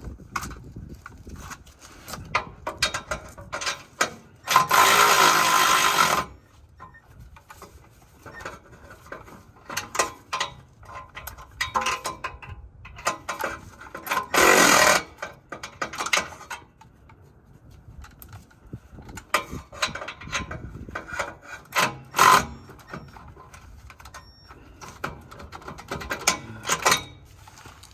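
Cordless power tool, such as an impact wrench or electric ratchet, running in two bursts of about a second and a half each, between many metallic clicks and clanks of tools and exhaust hardware being worked by hand.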